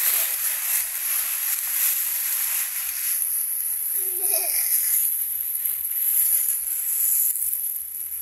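Dry fallen leaves rustling and crunching steadily as children roll and burrow in a leaf pile.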